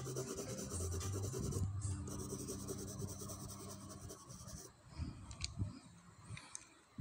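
A coloured pencil scratching and rubbing on paper in quick back-and-forth shading strokes, growing quieter about two-thirds of the way through, followed by a few light taps.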